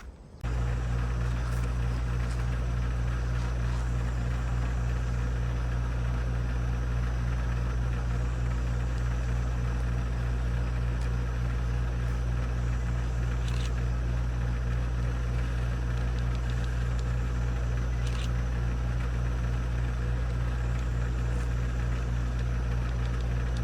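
Engine idling at a constant speed with a deep, steady hum, cutting in abruptly just after the start.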